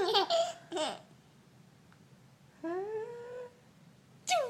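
Baby babbling: a few short high-pitched vocal sounds in the first second, a longer rising one about halfway through, and another brief one near the end.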